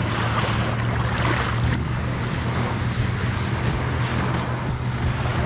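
Small waves washing over the sand at the water's edge, with a steady low wind rumble on the microphone.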